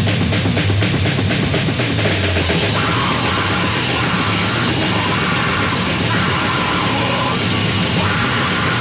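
Heavy, distorted thrash/punk band music from a lo-fi 1980s demo recording. Fast drumming and distorted guitars form a dense, loud wall of sound throughout.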